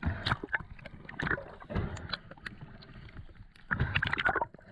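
Water sloshing and splashing in irregular bursts, with scattered sharp knocks, heaviest a little before the end.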